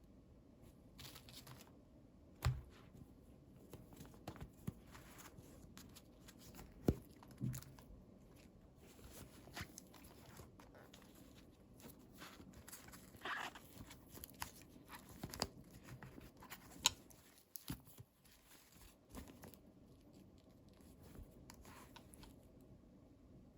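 Toy packaging and small plastic toys being handled and unwrapped: scattered light taps, clicks and short crinkly rustles, with a slightly longer rustle a little past halfway.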